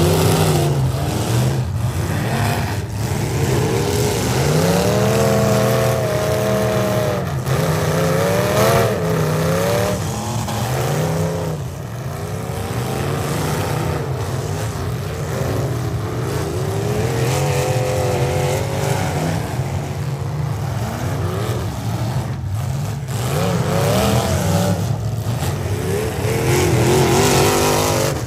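Several full-size V8 demolition derby cars revving hard, engines rising and falling in pitch as they push and ram one another, with a few sharp bangs of car bodies colliding.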